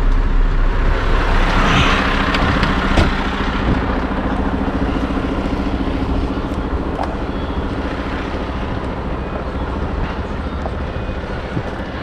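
Heavy diesel engine running steadily, with a single sharp click about three seconds in.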